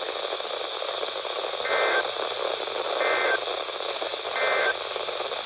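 Three short data bursts of an Emergency Alert System end-of-message code, each about a third of a second, a little over a second apart. They come from a weather-radio receiver over steady radio static hiss.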